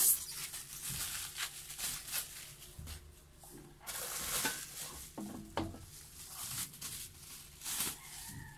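Plastic packaging crinkling on and off, with light clicks and knocks as an air fryer's removable basket and its perforated crisper plate are handled.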